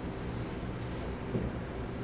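Room tone: a steady low hum, with one faint small click a little over a second in.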